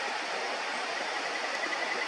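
Steady rush of flowing river water, with a faint thin high tone joining about a second in.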